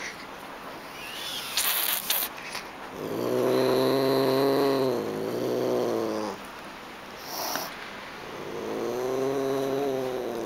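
A kitten growling: long, low, drawn-out growls, one starting about three seconds in and another near the end, with a few short rustles and clicks in between.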